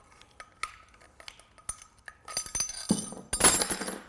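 Small metallic clicks as a T30 Torx key works the chainring bolts of a Shimano XT crankset, then a louder clinking clatter from about two seconds in as the loose steel bolts and the small granny chainring come off and are set down on the table.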